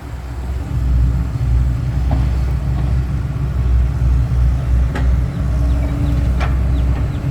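Mitsubishi Fuso Fighter dump truck's diesel engine running, a steady low rumble.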